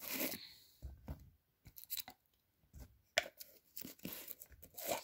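Elasti Plasti putty being pulled and torn off by hand, with sticky tearing and squishing noises and the plastic tub handled. Scattered light clicks and scrapes with short silent gaps; the sharpest click comes a little after three seconds in.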